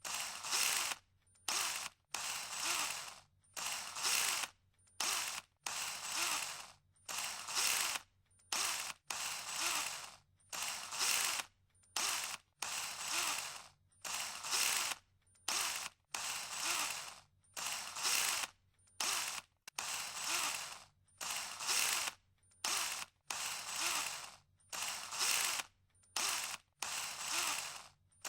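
18V cordless drill running at high speed in repeated short bursts as the trigger is pulled and released: a run of about a second, then a quick blip, the pair repeating about every two seconds.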